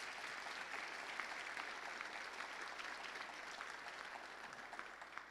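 Congregation applauding a graduate, a steady patter of many hands clapping that tapers off near the end.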